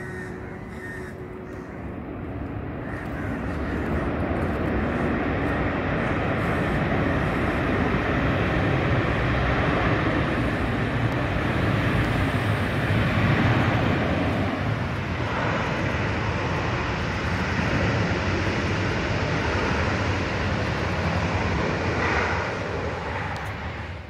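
Jet aircraft engines passing overhead: a steady rumble that builds over the first few seconds, stays loud with a falling pitch about midway, and eases off near the end.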